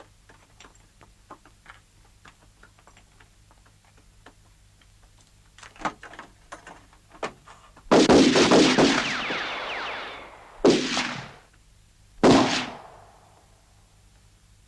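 Faint scattered clicks, then a ragged volley of black-powder rifle fire about eight seconds in that dies away over a couple of seconds, followed by two more single shots.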